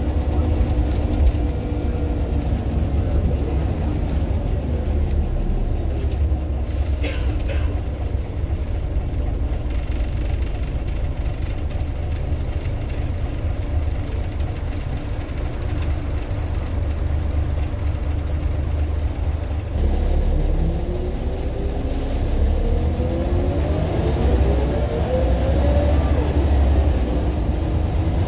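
Scania bus's diesel engine and ZF automatic gearbox running with a heavy low rumble. About twenty seconds in, the pitch rises as the bus accelerates.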